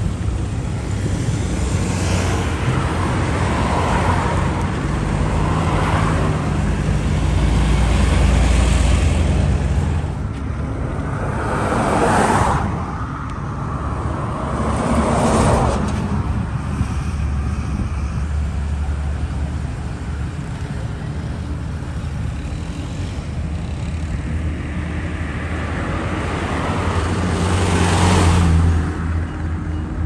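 Road traffic: a continuous engine rumble with several vehicles passing close by, the clearest passes about twelve, fifteen and twenty-eight seconds in.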